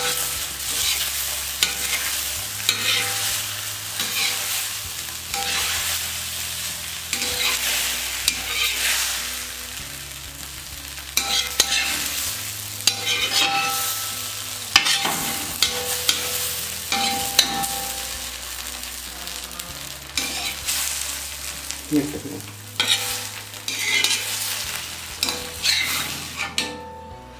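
Egg kalakki frying in curry gravy on a hot flat iron griddle (tawa): steady sizzling, with a metal spatula scraping and tapping on the pan again and again as the egg is folded and lifted.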